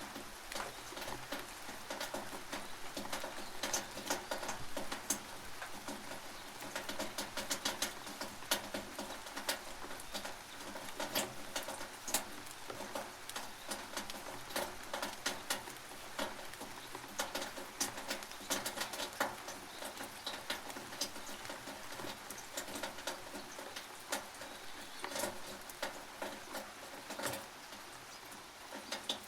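Rain on a tin roof, heard from underneath: a steady hiss of rain with many irregular, sharp drops and drips ticking on the metal.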